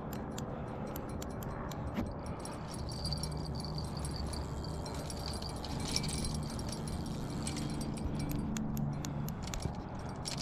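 Small bells on a carp fishing rod jingling in irregular shakes as a hooked fish pulls on the line, over a low steady hum.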